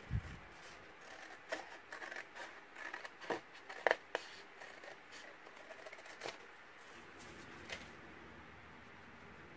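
Large scissors snipping through kraft cardstock, cutting away a scored strip: a run of sharp snips between about one and a half and four seconds in, then a couple of lighter clicks as the card is handled.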